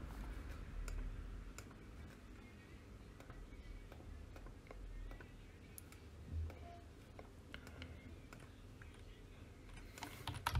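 Scattered faint clicks of a computer mouse and keyboard being used, over a low steady room hum; the clicks are denser near the start and again near the end.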